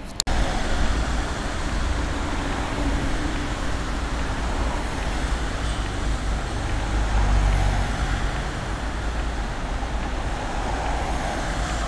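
Road traffic on a city street: cars driving past in a steady rumble of engines and tyres, swelling about seven seconds in as a vehicle passes close.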